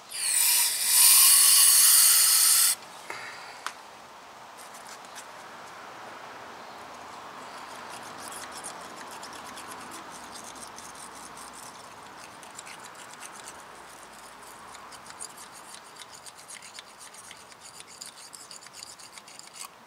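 An aerosol cleaner sprays a loud hissing jet into a brake caliper bracket's slide-pin bore for about three seconds and cuts off. A steady scratchy rubbing follows as the bore is scrubbed clean of old grease.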